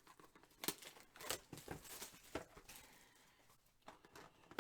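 Trading cards and their packaging being handled: faint rustling with a handful of light clicks and snaps of card stock and plastic.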